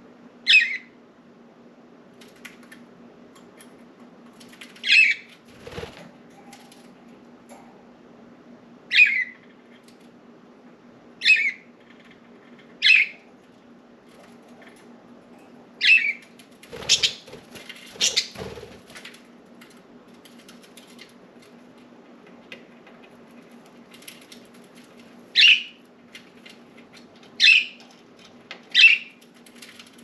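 Budgerigars giving short, sharp chirps, about a dozen of them spaced a few seconds apart, over a low steady hum.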